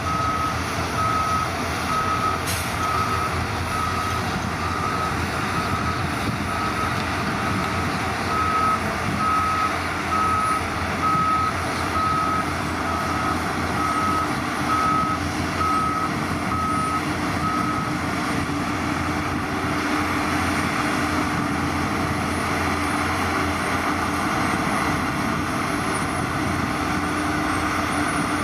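A heavy construction vehicle's reversing alarm beeps steadily at one pitch over its running diesel engine. The beeping stops about two thirds of the way through, and the engine keeps running with a steady low hum.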